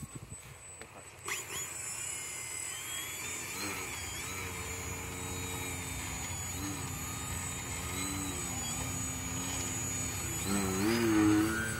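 Small electric RC airplane motor, a 2204 1900kv brushless motor turning a 9x4.1 propeller, whining as the foam 3D plane hovers nose-up. The pitch wavers up and down with the throttle and goes louder and higher about ten and a half seconds in, after a sharp knock just over a second in.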